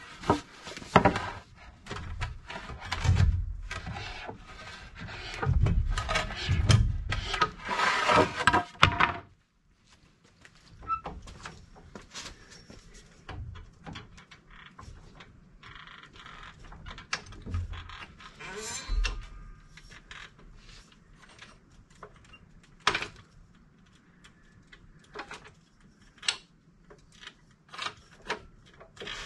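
Clattering and knocks of tools and metal being handled and rummaged through, dense for about the first nine seconds, then after a sudden break, scattered single knocks and clicks.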